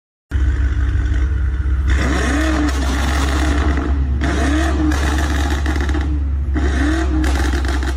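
BMW M5 engine and exhaust running loud with a heavy low rumble, the revs rising and falling three times. It starts abruptly just after the beginning.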